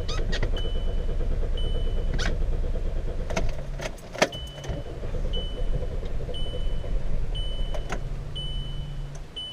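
A 2006 VW Jetta's engine being cranked by the starter without catching: a steady rapid churning that breaks off about four seconds in, then cranks again. The engine has a cold-start no-start, which the owner puts down to a faulty coolant temperature sensor. A dashboard warning chime beeps about once a second throughout.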